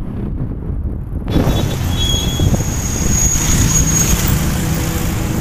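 Motorcycle ride through city traffic: a steady low rumble of engine and road noise with wind buffeting the microphone. About a second in, the sound turns brighter and fuller, and a thin high whistle runs for about two seconds in the middle.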